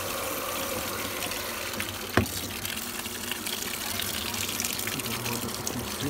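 Brastemp Clean BWC11 top-load washing machine filling for its second rinse: a steady gush of water pouring from the inlet into the drum. One sharp click about two seconds in.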